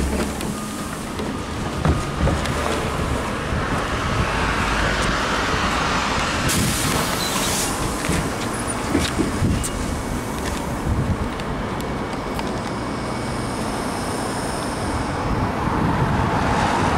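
Inside a ZiU-682 trolleybus: a steady running rumble with rattles and clicks, and a short hiss about six and a half seconds in.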